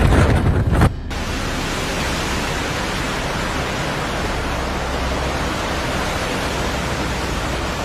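Storm wind buffeting the microphone, cut off suddenly about a second in. A steady, even rushing noise of storm weather follows.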